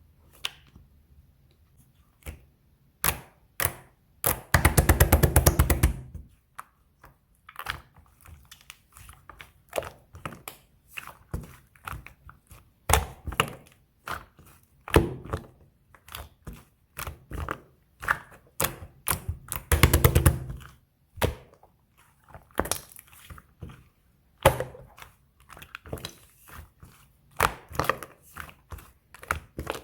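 Fluffy slime being squished and pressed by hand, giving irregular sharp clicks and pops, with two longer spells of rapid crackling air-bubble pops about five seconds in and again near the middle.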